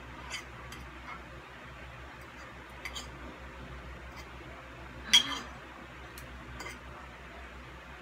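Metal forks clinking and tapping against a dish as noodles are twirled and lifted, a scattering of separate clinks with one sharper one about five seconds in.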